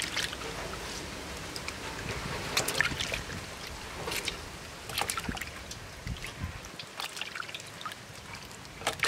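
Water sloshing and splashing in a stainless steel bowl as gutted eels are rinsed by hand and lifted out into a steel pot, with irregular small splashes and drips.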